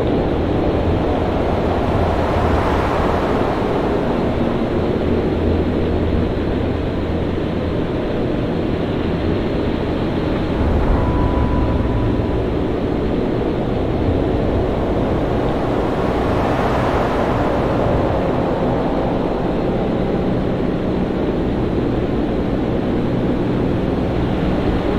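Stormy sea: heavy waves and wind making a steady, deep rumbling wash, with two waves swelling up and breaking, one a couple of seconds in and one about two-thirds of the way through.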